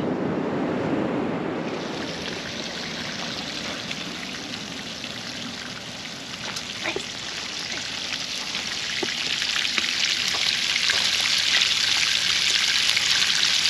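Bacon frying on a flat-top Blackstone griddle: a steady sizzle with a few sharp spatter pops, growing louder in the second half.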